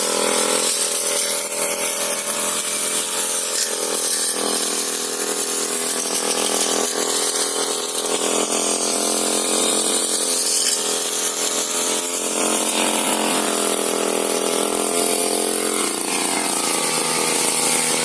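Petrol brush cutter's small engine running steadily at high speed while cutting weeds.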